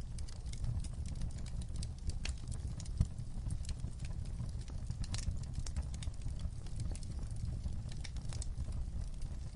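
Fire crackling: irregular sharp pops and snaps, several a second, over a steady low rumble.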